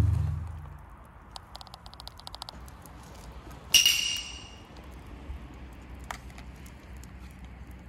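Wood fire of split logs burning in a fire stand, with scattered crackles and pops over a low steady hiss. In the first second a loud ringing tone fades out, a short quick run of clicks follows, and about four seconds in a single bright metallic ring sounds and dies away within half a second.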